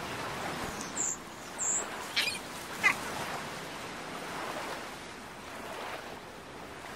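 Steady wash of surf, with four short, high bird chirps in the first three seconds.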